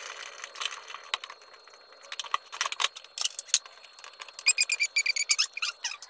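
Coins and small hard objects from a clogged washing-machine drain clicking, clinking and rattling as they are handled, with a brief run of high squeaks about four and a half seconds in.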